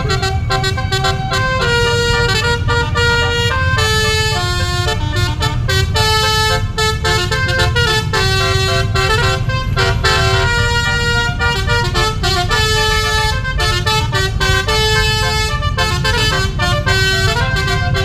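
Tour-bus telolet horn, a set of air trumpets, playing a tune: held notes that jump from pitch to pitch in quick succession over the low rumble of the vehicle.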